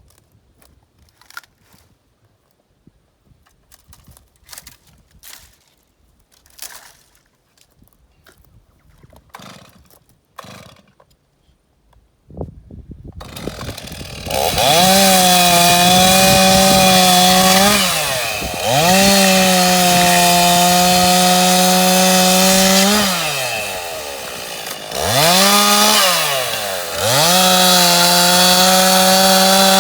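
Faint scattered crackles and clicks for about twelve seconds. Then a Stihl two-stroke chainsaw starts up and runs at full throttle in four long bursts, dropping back toward idle between them as it cuts through wattle wood.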